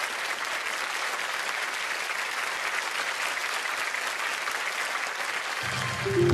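Studio audience applauding steadily. Near the end, a grand piano starts playing low, sustained notes under the clapping.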